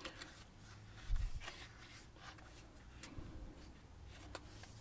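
Cardboard book-style Blu-ray packaging being handled and its panels turned: light rustles and taps, with a soft bump about a second in.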